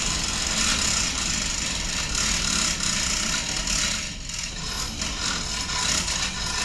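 A vehicle engine running steadily, with a rattle over it. It dips briefly about four seconds in.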